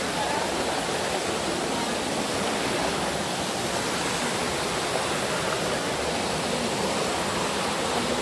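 Rocky mountain stream rushing over and between boulders: a steady, unbroken rush of water.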